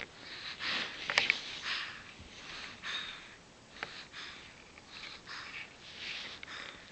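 Repeated short sniffs, one or two a second, with a couple of sharp clicks about a second in.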